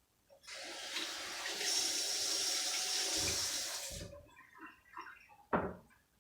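Kitchen tap running for about three and a half seconds, turned on and cut off abruptly, followed by a few light clatters and a sharp knock near the end.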